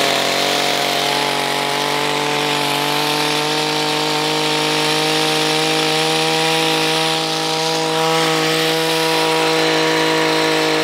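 Stihl HL45C hedge trimmer's small petrol engine running steadily at high revs, its pitch held level with a slight dip about two-thirds through. Freshly tuned up, it keeps running cleanly instead of dying, which confirms the repair.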